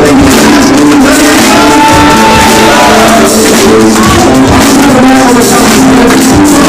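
Loud music with a melody in steady, stepping notes over a dense full mix, heavily compressed and near clipping.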